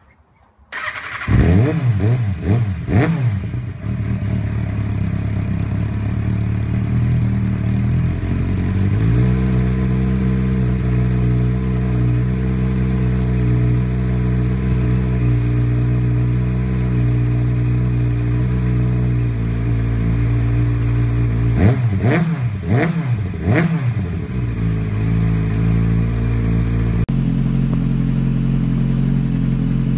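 Kawasaki ZX-6R inline-four sport bike engine starting about a second in through its standard exhaust. It is blipped up and down several times, settles to an idle that rises about nine seconds in, and is revved again a few times about two-thirds of the way through. Near the end the sound switches abruptly to the same engine idling through an unbaffled Yoshimura RS5 silencer, with a lower-sounding tone.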